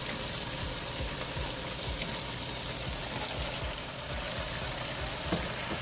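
Chicken and spinach curry sizzling steadily in a pot as chopped turnip pieces are tipped in.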